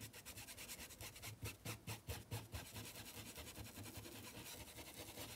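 Paintbrush scrubbing paint into fabric stretched on a board: quick, faint scratchy strokes of the bristles over the cloth, several a second, thinning out in the second half.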